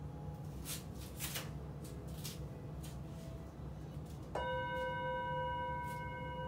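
A few soft rustles as a singing bowl is picked up, then, about four seconds in, the bowl is struck once and rings on steadily with a clear fundamental and several bright overtones.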